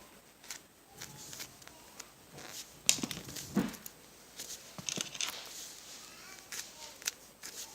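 Squishy foam toys being handled and set down: scattered soft taps, clicks and rustles, with a couple of louder knocks about three and five seconds in.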